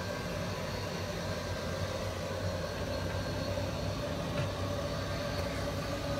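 Steady mechanical hum with a constant whine, over an even hiss.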